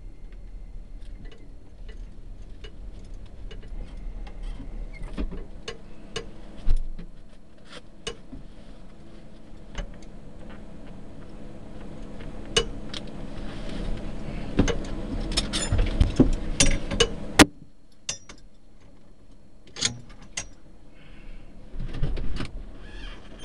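Scattered clicks, knocks and rattles inside a drag car's cabin over a low steady rumble. They grow busier and louder toward the middle, then stop abruptly.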